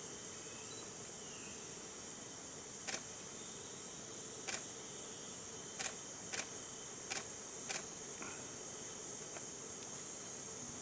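Steady high-pitched drone of an insect chorus in rainforest. Six short, sharp clicks come in the middle, spaced unevenly a second or so apart.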